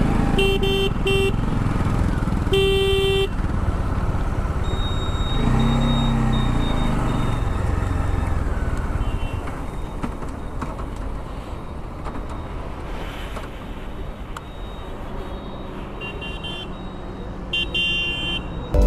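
Bajaj Dominar 400 motorcycle riding along a highway: steady wind and engine noise from the rider's bike, with two short horn beeps about half a second in and a longer horn toot near three seconds. The road noise eases off in the second half, with a few faint beeps near the end.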